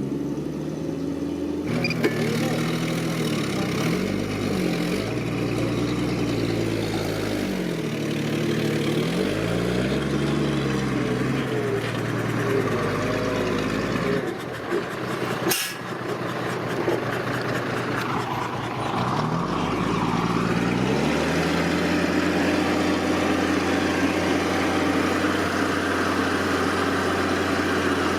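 Heavy construction machine's diesel engine revving up and down again and again under changing load, then settling into a steady idle about three-quarters of the way in. A single sharp clack sounds a little past the middle.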